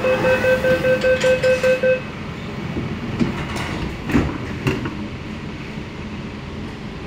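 MTR K-Train door-closing warning: a rapid beeping tone, about four beeps a second, that stops about two seconds in. The sliding doors then shut with a few thuds around three to five seconds in, leaving a steady hum.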